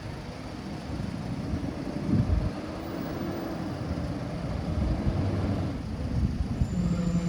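Garbage truck engine running with a steady low rumble, and a steady tone coming in near the end.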